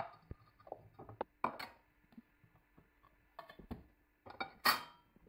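Light knocks and clinks of a metal fluted tart tin and its loose base being handled and set down on the table, the loudest clink near the end.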